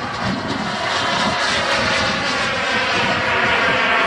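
Frank turbine of a large-scale RC model jet in flight, giving a steady jet rush with a faint whine.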